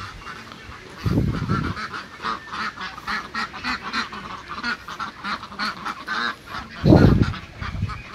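A flock of domestic ducks quacking, many short calls overlapping in quick succession. Two low rumbles break in, about a second in and again near the end, the second the loudest.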